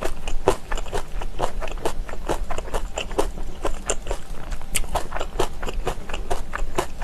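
Close-miked chewing of crunchy kimchi: wet, crisp crunches coming about three or four a second.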